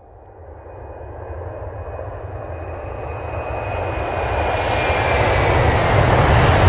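Jet aircraft engine rush growing steadily louder, with a low rumble underneath and a thin whine that slides slightly down in pitch.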